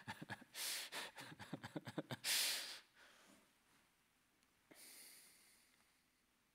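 A man breathing during a pause in speech: a few soft mouth clicks, then a loud breath a little over two seconds in and a fainter, longer one around five seconds in.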